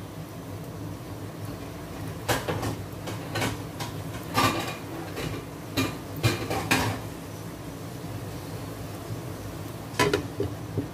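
Kitchenware clattering in several sharp knocks and clinks over a few seconds, then, about a second before the end, a glass lid clinking as it is set onto a nonstick frying pan. A steady low hum runs underneath.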